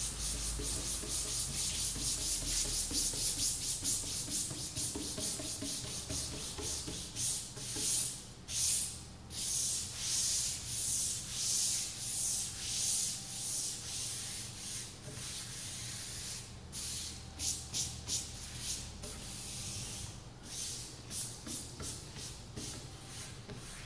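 Hands sweeping and rubbing over a poker table's fabric cloth, smoothing it down onto the table top. The palm-on-fabric hiss is continuous at first, then comes as separate sweeping strokes about one a second.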